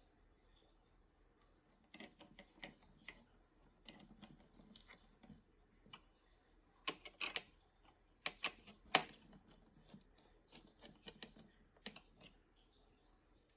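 Irregular clicks and taps of hard plastic and metal computer parts being handled and fitted together, with a louder cluster of sharp clicks about seven to nine seconds in.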